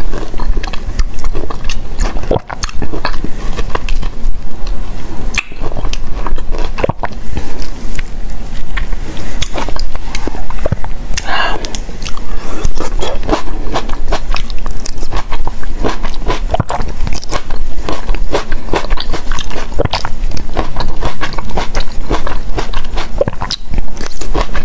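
Close-miked eating: a person biting and chewing cherry tomatoes, with a dense run of wet mouth clicks and smacks.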